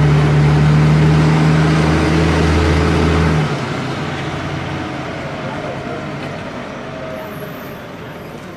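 Volvo B58E city bus's diesel engine roaring with a deep, steady note that cuts off abruptly a little over three seconds in, after which the bus's road noise fades away.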